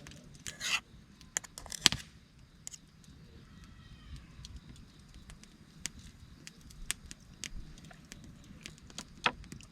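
Wood campfire crackling, with sharp irregular pops scattered throughout. Two louder, longer rustling bursts come about half a second and two seconds in.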